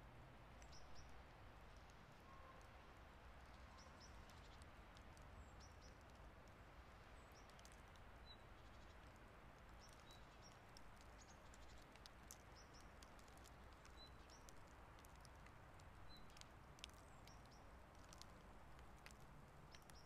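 Near silence of light snowfall outdoors: a faint steady hiss with scattered faint ticks of snow landing. A few faint, short high chirps come through in the second half.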